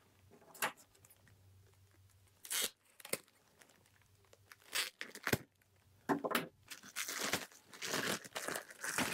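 Clear plastic packaging bag being torn and crinkled by hand as a metal frame part is unwrapped: scattered short rustles that come thicker and faster in the last three seconds.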